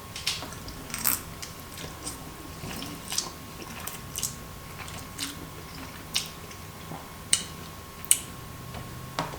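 A person eating ready-made noodles with chopsticks, heard close up: short, wet mouth smacks and chewing clicks at irregular intervals, roughly one a second.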